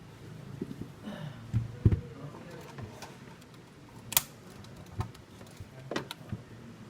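Scattered sharp clicks and light knocks of small hard plastic and metal parts being handled, as in work on a laptop during a RAM upgrade. There is a dull knock about two seconds in and a loud sharp click a little past four seconds, with a few smaller clicks after it.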